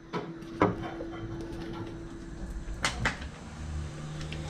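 A few light, sharp clicks and knocks over a faint steady hum.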